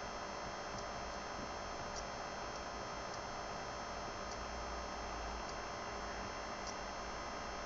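Steady electrical hum and hiss of room tone, with faint scattered ticks.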